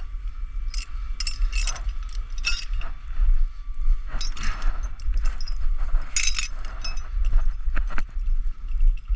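Irregular light metallic clinks and rattles over a steady low rumble.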